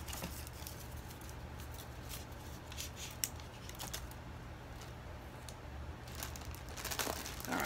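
Faint rustling and handling of plastic packaging and clothing while an item is packed into a mailer, with a few soft ticks, over a low steady hum.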